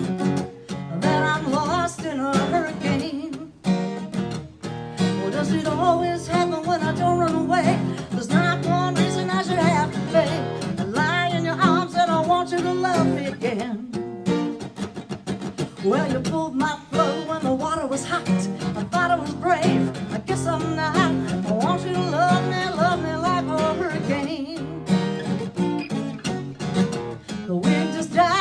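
A song played live on acoustic guitar, with a singing voice over the guitar.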